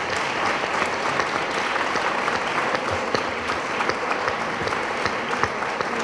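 Audience applauding, many hands clapping at a steady level after a speech ends.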